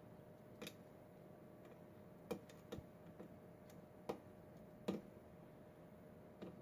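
Lock pick working the pins of a Schlage pin-tumbler lock cylinder: a scattering of sharp, irregular metal clicks, about eight, as pins are lifted and set under tension.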